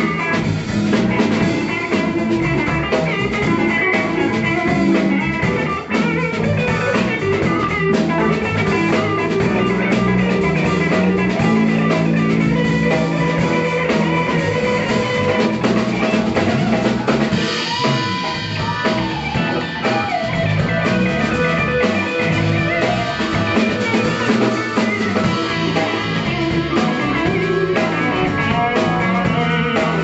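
Live blues band playing: electric guitars over a steady drum kit beat.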